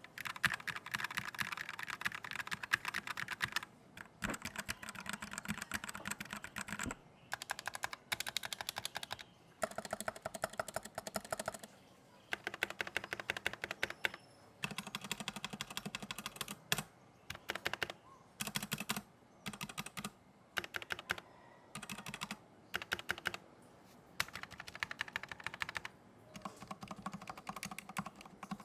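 Fast typing on a mechanical keyboard with linear switches: rapid runs of key clacks in bursts of a second or a few seconds, broken by short pauses.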